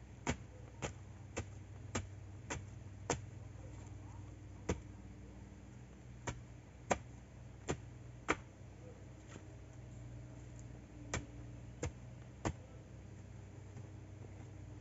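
Sharp knocks of a long wooden pole being rammed down into the earth at the foot of an upright post, pounding the ground: a run of six at about two a second, then scattered strokes, a pause of a few seconds, and three more near the end.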